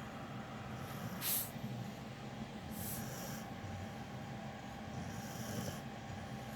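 Dog snoring in its sleep: a steady low rumble with a sudden loud breath about a second in and softer breaths near three and five seconds.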